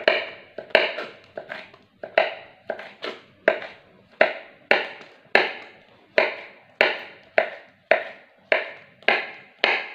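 Kitchen knife slicing red chili on a plastic cutting board: a steady run of sharp chops, about one and a half a second.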